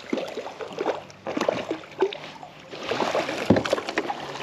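Water sloshing and splashing around a kayak, with scattered irregular knocks and clicks of gear being handled; the splashing is busiest about three seconds in.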